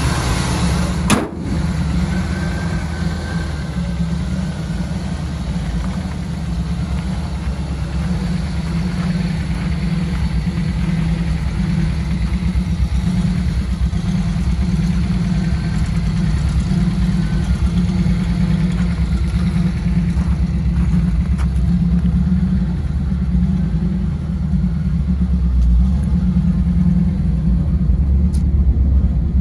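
Chevrolet 350 cubic-inch V8 idling steadily, a deep even rumble, with one sharp thump about a second in.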